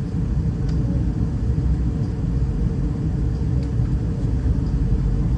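Steady low rumble of an Airbus A320-211 airliner in flight on approach, its CFM56 engines and airflow heard as an even drone.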